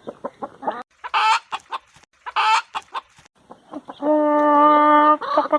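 Hen clucking in short rapid notes, with two brief high-pitched calls in the middle and one long, drawn-out call near the end.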